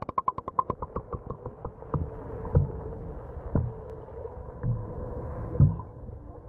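Muffled underwater sound of a dog paddling in a swimming pool, heard through a submerged camera: a quick run of clicks in the first second or so, then a handful of low thumps over a steady hum.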